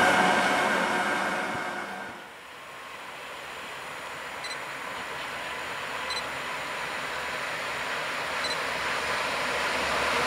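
A train's running sound fades out over the first two seconds. Then an approaching PKP ET22 six-axle electric freight locomotive and its train make a broad rumble that grows steadily louder as it nears. Three short high pips sound faintly in the middle.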